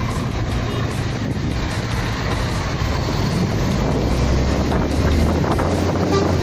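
Wind rushing over the microphone on a moving motorcycle, over a steady low rumble of the Tatra 12×12 truck and surrounding traffic on a wet road. The rumble grows a little louder about four seconds in.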